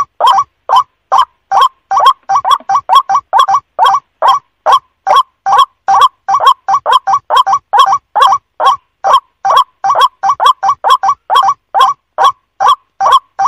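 White-breasted waterhen (ruak-ruak) calling: a fast, uneven run of short, harsh calls, several a second, repeated without pause.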